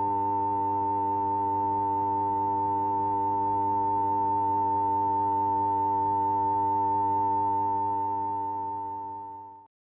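High-pitched humming sound effect: a steady, piercing tone with a lower hum beneath it, holding level and then fading out over the last two seconds until it stops.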